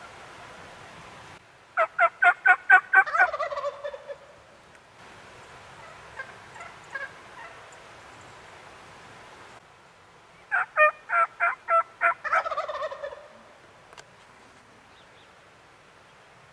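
Wild turkey tom gobbling twice, about nine seconds apart: each gobble is a quick run of rapid notes with a rattling tail that drops in pitch.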